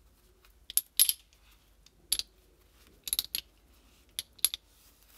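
Light metallic clicks and clinks in a few scattered clusters as the Planet Eclipse CS3 OP core's metal switch body is handled and wiped clean of old grease with a microfiber cloth.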